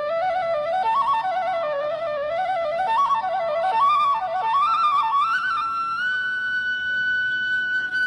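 Background music: a solo melody with quick ornamented turns, settling into one long held note about six seconds in.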